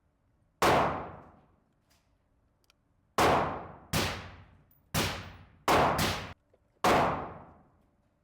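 Seven handgun shots fired at an uneven pace, about a second in and then in a quicker string from about three to seven seconds in, each sharp crack followed by a ringing decay.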